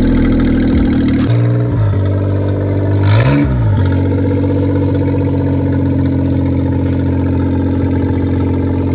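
Straight-piped F8B three-cylinder engine idling, its header exhausting through a bonnet-exit pipe with no muffler. It is blipped twice, briefly about one and a half seconds in and more clearly a little after three seconds in, and then settles back to a steady idle.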